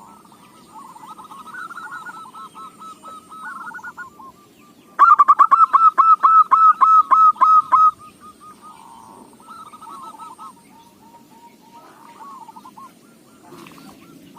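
Zebra doves cooing, their calls overlapping in repeated phrases of short notes. About five seconds in, one bird gives a loud rapid series of about a dozen notes lasting three seconds before the quieter cooing resumes.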